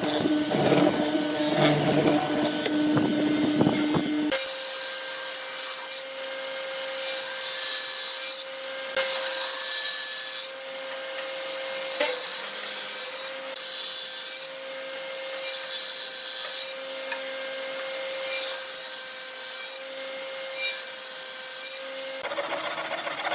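Wood being worked by hand in repeated back-and-forth strokes, like a saw or rasp, with a stroke about every second or so over a steady hum. For the first few seconds a louder machine sound runs and then stops.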